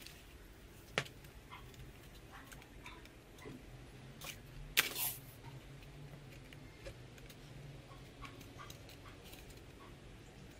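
Light, scattered taps and clicks of thin balsa sheeting being handled and pressed onto a model wing's framework, with a sharper click about a second in and a brief scraping rustle about five seconds in. A faint low hum runs underneath.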